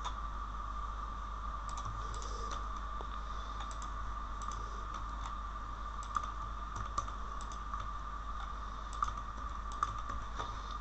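Computer keyboard typing: scattered, irregular keystrokes and clicks, a few sharper ones near the end, over a steady background hum.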